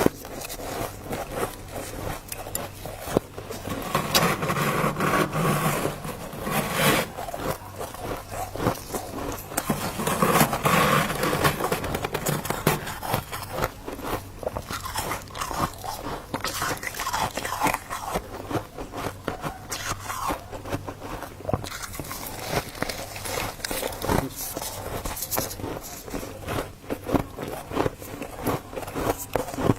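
Dry freezer frost being bitten and chewed close to the microphone: a dense run of crunches with a squeaky edge, heavier in two stretches a few seconds and about ten seconds in.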